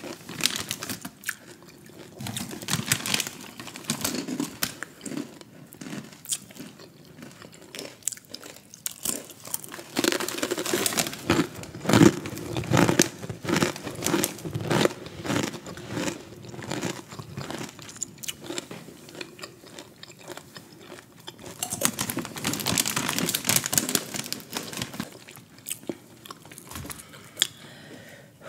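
Takis Xplosion rolled tortilla chips being bitten and crunched in the mouth, close to the microphone, with dense crisp crackles. There are heavier spells of crunching about a third of the way in and again past three-quarters of the way.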